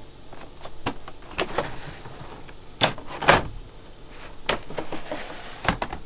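A camper-style window blind being slid open by its handle bar along an aluminium rail, with a series of sharp clicks and rattles. The loudest come about three seconds in.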